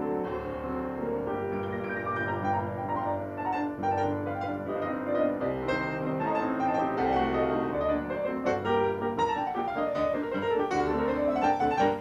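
A piano played four-hands by two players: a flowing classical-style piece full of quick runs, with a fast run down and back up near the end before the playing stops.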